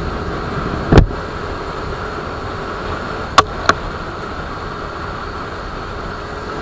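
Suzuki Raider 150 Fi motorcycle cruising at about 70 km/h, a steady engine and riding noise. A sharp knock comes about a second in, and two more come close together about three and a half seconds in.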